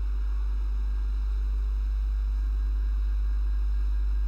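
Steady low electrical hum with faint hiss above it: the recording's room tone.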